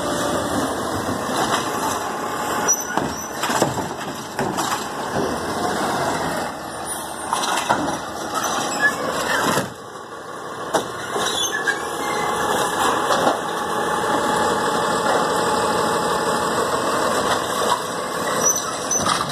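Automated side-loader garbage truck with its engine running while the hydraulic robotic arm dumps a trash cart, sets it down, and grabs and lifts a second one. A hydraulic whine and squeal runs throughout, with sharp clanks and bangs in the first half as the cart knocks against the hopper and is set back on the ground.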